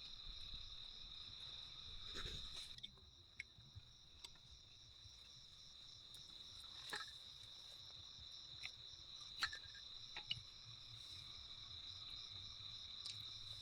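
Crickets chirping in a steady high-pitched trill, with a few sharp clicks scattered through.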